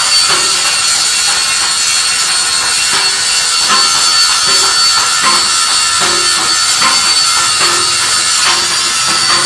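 Background music with jingling, tambourine-like percussion.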